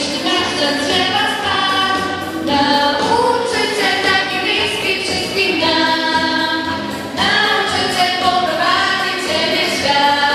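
A group of voices singing a song together, holding long notes in phrases a few seconds long.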